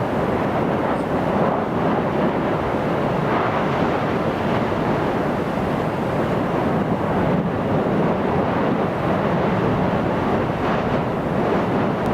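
Steady, surf-like rushing noise from a lava lake about 150 metres below, mixed with wind on the microphone.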